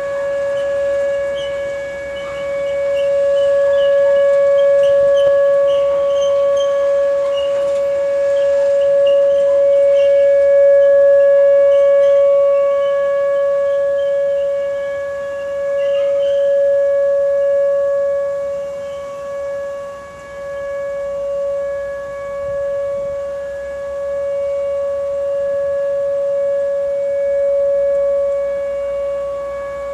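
Whelen electronic outdoor warning siren sounding a steady, unwavering alert tone for a scheduled nuclear power plant siren test. Its loudness slowly swells and fades, with a deeper dip about two thirds of the way through.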